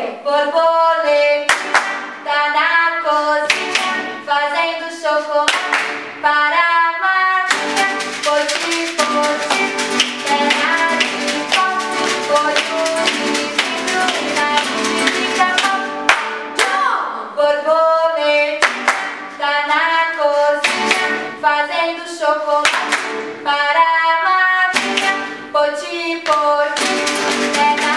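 A lively children's song, sung over strummed acoustic guitar, with a sharp hand clap about every two seconds.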